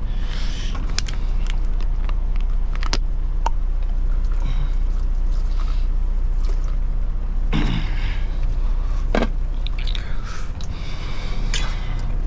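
Low steady rumble of an idling truck, with scattered clicks, scrapes and rustling from food and utensils being handled close by.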